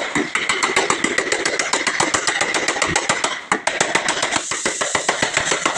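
A small motor or engine running, with a rapid, even knocking of about ten beats a second over a steady high whine; the knocking falters briefly about three and a half seconds in.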